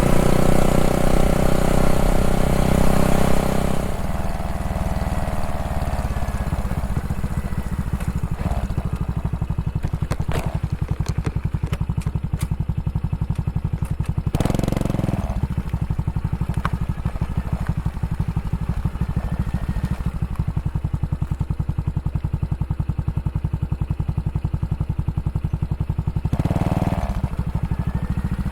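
Honda Super Cub JA44's single-cylinder four-stroke engine running steadily with an even pulse, after background music fades out about four seconds in. Two brief louder rushes of noise come midway and near the end.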